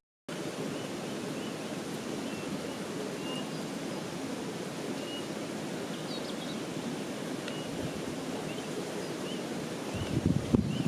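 Steady outdoor rushing noise, like a mountain stream, with short high bird chirps scattered through it. A brief burst of low rumble comes near the end.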